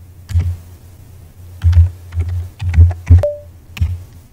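Typing on a computer keyboard: irregular keystroke clicks with low thuds under them.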